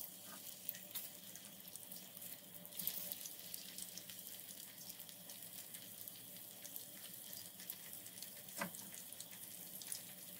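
Hot oil sizzling softly with a fine crackle around frozen, breaded eggplant pieces frying in a pan. A couple of louder crackles come about three seconds in and near the end, as more frozen pieces go into the oil.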